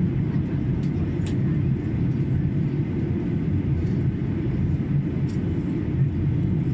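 Steady in-flight drone of a Boeing 737-800 heard inside the cabin by the wing: low rumble from its CFM56-7B turbofan engines and the airflow. A couple of faint clicks come about a second in and again after five seconds.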